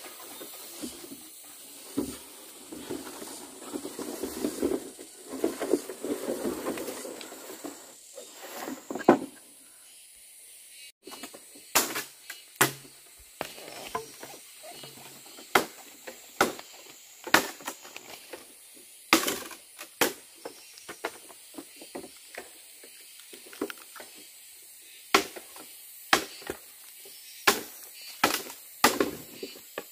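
Rustling and handling noise for the first several seconds, then a long string of sharp knocks, roughly one a second and unevenly spaced.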